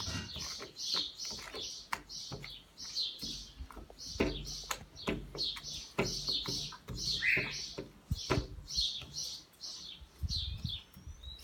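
A bird chirping rapidly and continuously, over short sticky clicks and squelches of glue-and-detergent slime being kneaded by hand.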